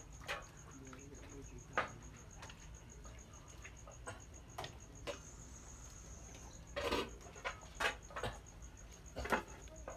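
Light, irregular knocks and clicks from cooking at a stew pot on a wood fire, with a small cluster about seven seconds in and another near the end. Behind them runs a faint, steady, high-pitched pulsing trill of a cricket.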